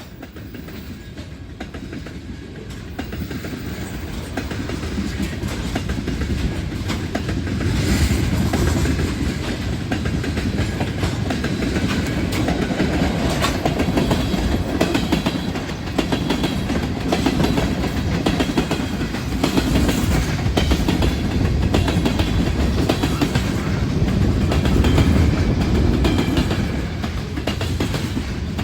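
A train passing close by, its wheels clacking over the rails. The rumble grows louder over the first several seconds, then holds steady with repeated sharp clicks.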